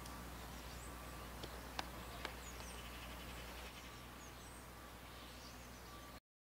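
Faint outdoor ambience: small birds chirping now and then over a low steady rumble. Three sharp clicks fall between about one and a half and two and a half seconds in, and the sound cuts out to silence briefly near the end.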